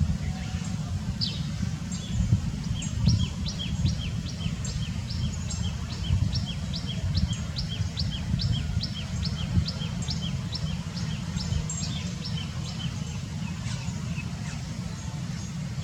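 A small bird calling repeatedly with short, high, falling chirps, about three a second, over a steady low rumble.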